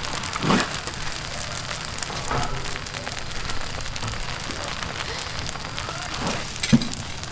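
Rice noodles and pork stir-frying in a large wok: a steady sizzle and crackle, with the metal spatula scraping the wok as the noodles are tossed, loudest about half a second in and again near the end.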